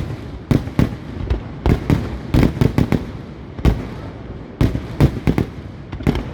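Professional category 4 display fireworks: shells bursting in a rapid, irregular string of loud bangs, more than a dozen in a few seconds, with a rumbling echo between them.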